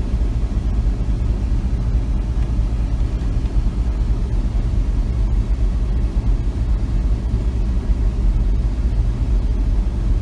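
A vehicle moving slowly in traffic, heard as a steady low rumble of engine and road noise.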